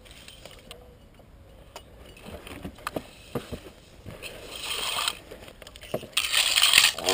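Scattered clicks and knocks as a Kawasaki KLR 650 motorcycle lying on its side after a crash is handled, its engine stopped, with rustling of pine branches brushing against the rider. The brushing is louder about six seconds in.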